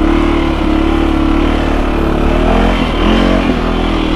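Off-road vehicle engine running under load, its revs rising and falling a couple of times.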